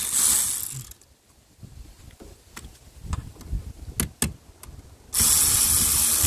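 Hand ratchet wrench clicking rapidly as it turns a 10 mm nut. Two bursts of ratcheting: one that stops about a second in and another that starts about five seconds in, with a few light metal clinks between them.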